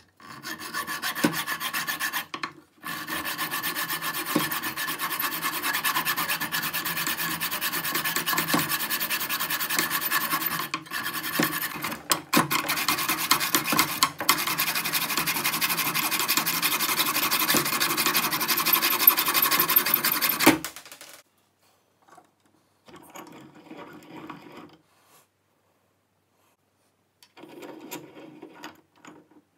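Hacksaw cutting a stainless steel nut clamped in a vise: continuous sawing for about twenty seconds with a few brief pauses, then it stops. Near the end there are faint scrapes and clicks as the nut is handled in the vise.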